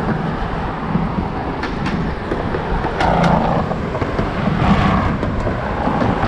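Road traffic passing on the seaside road, a continuous rumble and hiss that swells about three seconds in.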